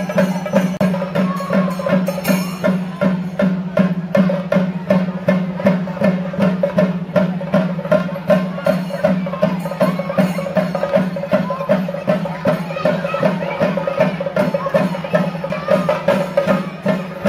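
An ensemble of chenda drums, Kerala cylindrical temple drums, played with sticks in a fast, steady, unbroken rhythm: chenda melam accompaniment to a Thira ritual dance.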